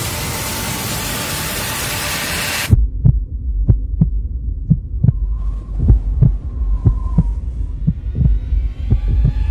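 Trailer sound design: a loud wash of noise cuts off abruptly, giving way to a low rumbling drone with heartbeat-like double thumps about once a second.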